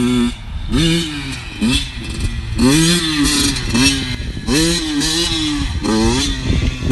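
Small dirt bike engine revved in about eight short throttle bursts, each one rising and then falling back in pitch.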